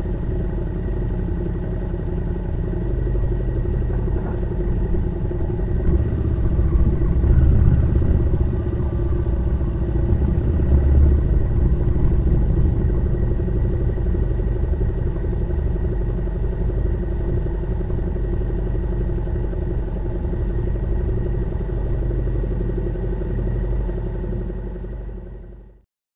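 Motorcycle engine running at a steady speed while riding, with a strong low rumble that swells for a few seconds; the sound fades out near the end.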